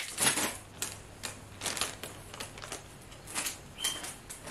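Clear plastic bag crinkling in irregular crackles as it is pulled off and handled, with some cloth rustling as a garment is shaken out.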